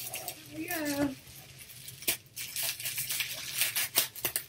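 Crinkling and crackling of a foil-lined foam insulating wrap being pulled open by hand: a quick, irregular run of crackles.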